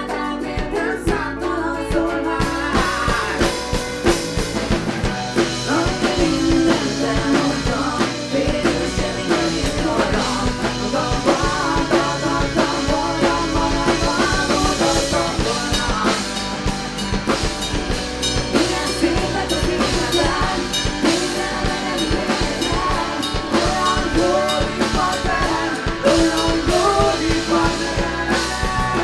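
Live rock band playing a song: guitar and a sung melody, with a drum kit joining about two seconds in and keeping a steady beat.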